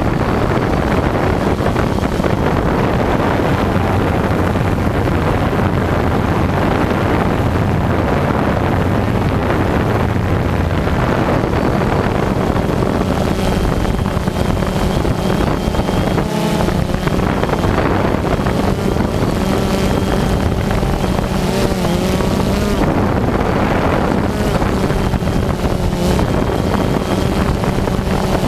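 DJI Phantom quadcopter's four electric motors and propellers buzzing steadily, heard from the GoPro on the drone itself, with wind rushing across the microphone. The motor pitch shifts and wavers a few times about halfway through as the throttle changes.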